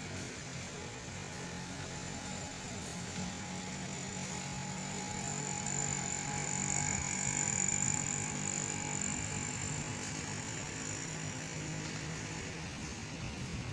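Street traffic heard from above: a steady hum of vehicle engines, with a thin high whine that swells around the middle and fades again.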